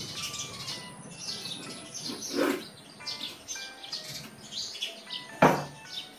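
Small birds chirping and twittering steadily, with two knocks: a duller one about two and a half seconds in and a louder, sharper one near the end.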